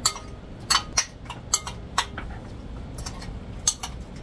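Metal spoon clinking against a ceramic plate and bowl while food is served: about half a dozen sharp, irregular clinks.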